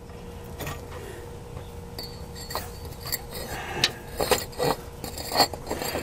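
Bricks being set down and stacked by hand: a run of rough scrapes and short knocks that come thicker in the second half.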